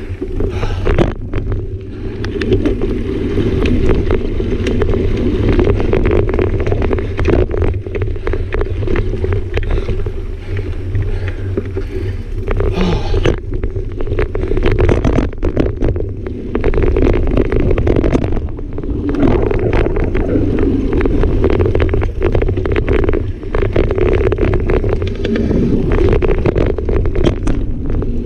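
Mountain bike riding down dirt singletrack: heavy wind rumble on the camera microphone over the tyres running on dirt, with many small clicks and knocks as the bike rattles over rough ground.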